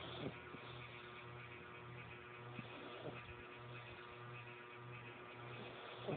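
Light, soft snoring from a sleeper: a short faint snore about every three seconds over a steady low hum.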